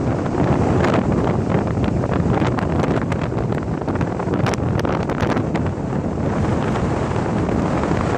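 Strong wind buffeting the microphone: a loud, continuous low rumble broken by frequent crackling gusts.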